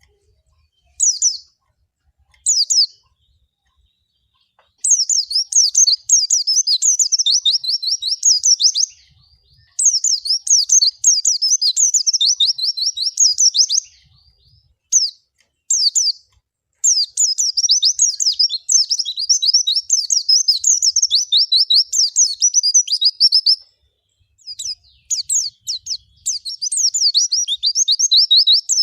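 Pleci (white-eye, Zosterops) singing: a couple of short high calls, then long, rapid, high-pitched twittering phrases of quick sweeping notes, each lasting several seconds, with short pauses between them.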